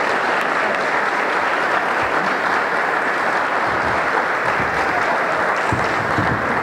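Audience applauding steadily as the player is introduced, the clapping dying away just after.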